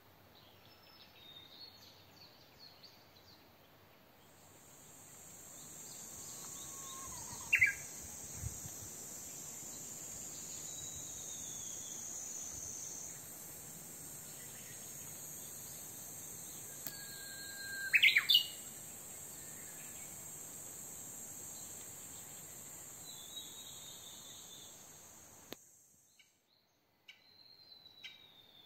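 Birds calling outdoors: two loud, short rising calls, about eight and eighteen seconds in, and faint scattered chirps. Under them a steady high insect drone fades in a few seconds in and cuts off suddenly near the end.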